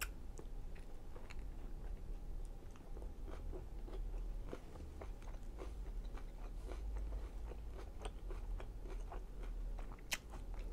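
Close-up chewing of a chicken fajita in a flour tortilla, with soft wet mouth clicks and smacks scattered irregularly throughout and a sharper click at the start and again near the end.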